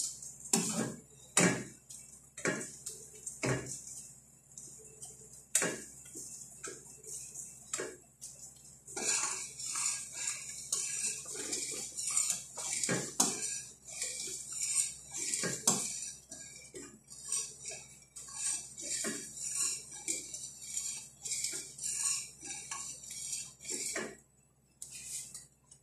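Metal spoon stirring milk in a stainless steel pot, clinking and scraping against the pot's sides and bottom over and over. The strokes come thickest from about a third of the way in until just before the end, when they stop.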